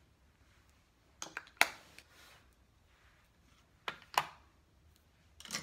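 Sharp clicks and clacks of small makeup items being handled: three groups, about a second in, around four seconds in, and near the end.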